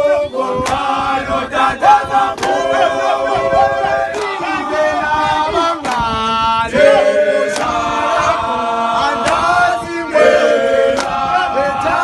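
Group of men singing a gwijo, a South African call-and-response group song, a cappella in several-part harmony. Sharp hand claps keep time through the song.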